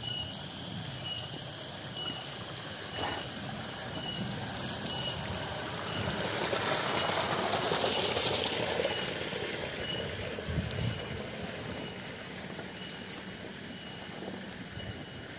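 Cicadas droning steadily in a high-pitched chorus, with one pulsing note among the steady tones. A broader rushing noise swells and fades between about six and nine seconds in.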